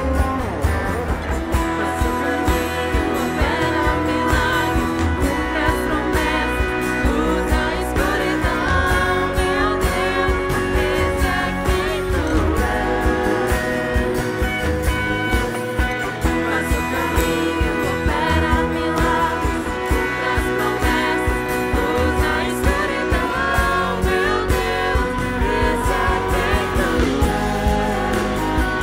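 Live worship band playing: electric guitar and bass guitar with several voices singing into microphones.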